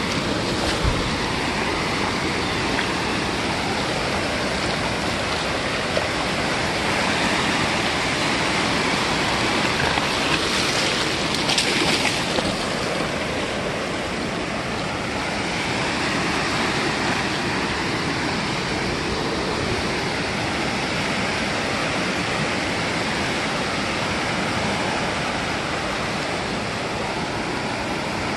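Ocean surf breaking and washing up the beach: a steady rush that swells and eases, with a louder surge about ten to twelve seconds in.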